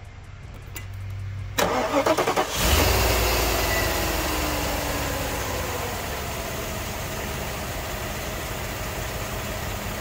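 Mercedes W126's M117 V8 cranked by the starter about a second and a half in, catching after about a second, flaring up and then settling into a steady idle that sounds pretty good. The engine is cold, and its misfire usually shows only once it warms up.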